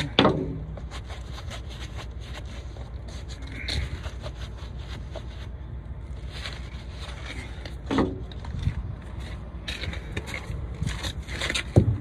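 Crunching steps and scraping on frozen gravel, with gloved-hand handling noise, over a steady low rumble. A few louder scrapes come about eight seconds in and near the end.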